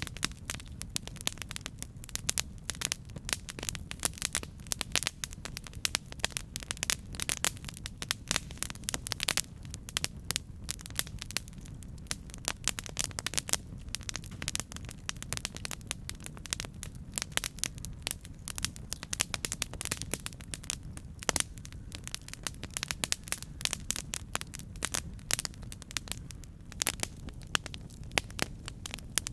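Campfire burning with constant irregular crackling and popping over a steady low rumble of the flames.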